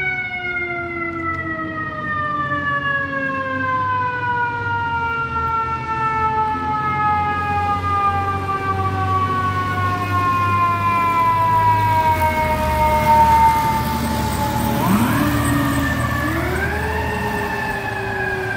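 FDNY fire apparatus's mechanical siren winding slowly down in pitch for about fifteen seconds, then spun up again twice in quick succession, rising sharply each time. A truck engine rumbles low underneath.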